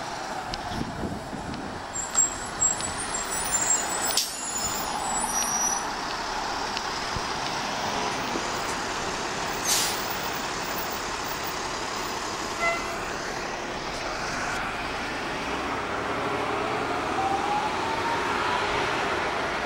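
Articulated city bus passing close by on the street, its engine and tyres running amid traffic, with a few sharp knocks about two to four seconds in. A short, sharp air-brake hiss comes about ten seconds in, and a rising whine of a vehicle pulling away comes near the end.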